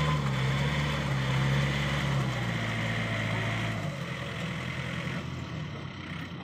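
Yanmar EF494T tractor's diesel engine working under load as it pulls its rotary tiller through a flooded, muddy paddy. The engine note holds steady, drops a little after about two seconds and eases off about four seconds in.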